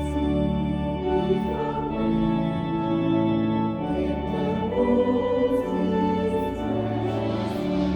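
Choir singing sustained chords with organ accompaniment, the low bass notes held steady under the voices.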